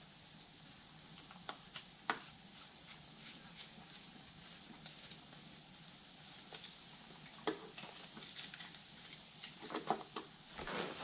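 Scattered faint clicks and taps of hands handling parts on a motorcycle near the rear brake fluid reservoir, with a short rustle near the end, over a steady high hiss.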